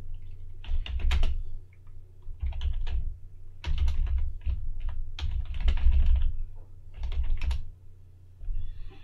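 Typing on a computer keyboard in about five quick runs of keystrokes with short pauses between them.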